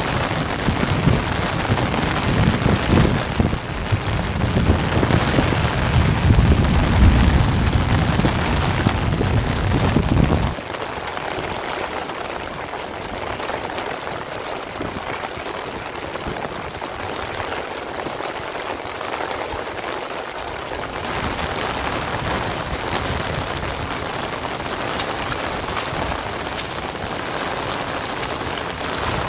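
Heavy rain falling steadily on crops and waterlogged ground. A low rumble lies under it for the first ten seconds or so and stops abruptly.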